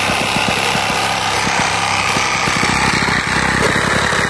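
A small cordless power saw running flat out as its blade cuts through a log, a rapid, steady buzz of strokes, with a Silky hand saw sawing the same log alongside.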